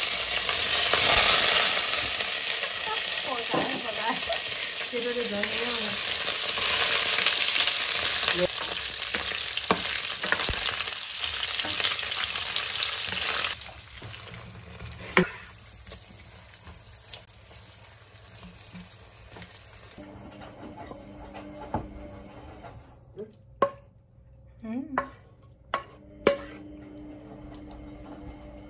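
Chunks of wild boar meat sizzling loudly in hot oil in a nonstick pan. About halfway through it drops to a much quieter fry, with a wooden spoon stirring and a few scattered clicks and knocks.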